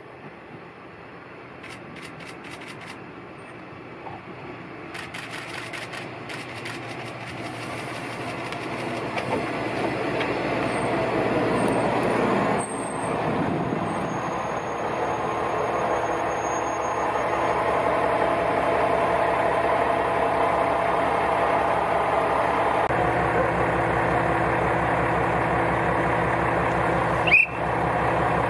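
KiHa 120 diesel railcar approaching, growing steadily louder, and coming to a stop about halfway through. Its diesel engine then idles steadily at the platform. A short sharp sound comes near the end and is the loudest moment.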